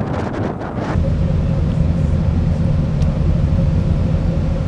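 Wind on the microphone, then from about a second in a steady low drone of a ferry's engines heard on the open deck, with a faint steady hum above it.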